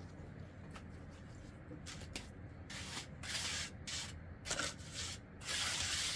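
A series of rubbing or scraping strokes: a few short ones early, then longer, louder strokes from about three seconds in, the longest near the end, over a steady low hum.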